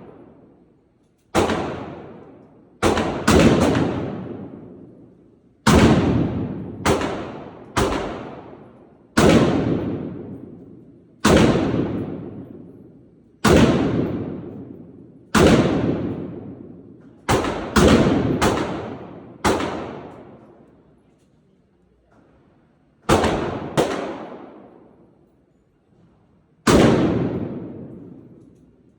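Firearm shots fired singly at uneven intervals, about seventeen in all, some in quick pairs, each followed by a long fading echo of a second or two.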